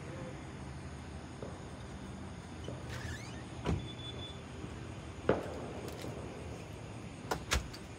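Fireworks going off at a distance: four sharp bangs, one a little before halfway, one about two-thirds through and two close together near the end, with a short rising whistle just before the first. A steady low hum runs underneath.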